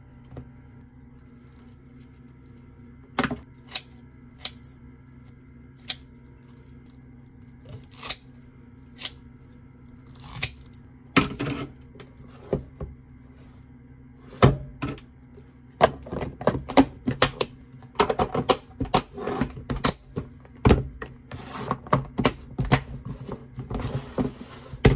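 Plastic food containers and lunch boxes handled on a stone countertop: sharp clicks and thunks of lids and snap-lock latches and of boxes set down, a few at first and coming thick and fast in the second half, over a steady low hum.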